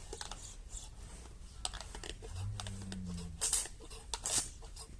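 Short hissing spurts of water being sprayed at cows, the two strongest near the end, among scattered clicks and knocks. A brief low call sounds about halfway through.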